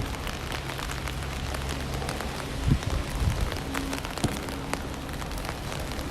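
Steady rain with drops tapping sharply on an umbrella overhead, a few heavier knocks among them, over a low steady hum.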